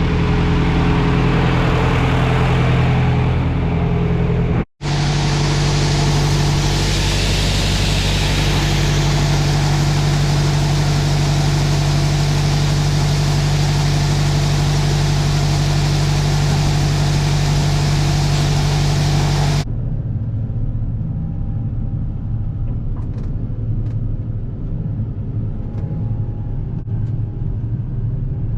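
Heavy vehicle engine running steadily, most likely the farm's grain truck after its cold start. There is a brief break in the sound about five seconds in. About twenty seconds in it changes abruptly to a duller, lower engine sound.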